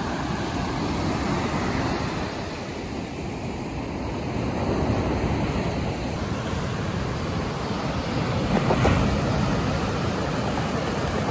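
Surf breaking on a sandy beach: a steady rush of waves, swelling louder about five seconds in and again near the end, with some wind on the microphone.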